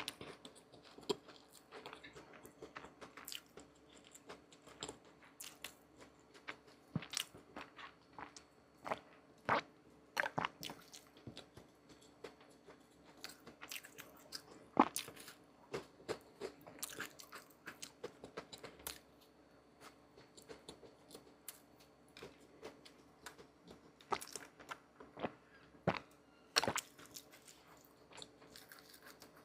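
Someone biting and chewing crusty bread, with irregular crisp crunches. It is most likely the walnut bun the video is about.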